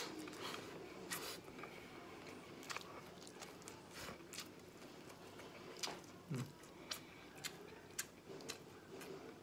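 Someone chewing a mouthful of adobo and rice, with faint wet mouth clicks at irregular intervals and a short low hum about six seconds in.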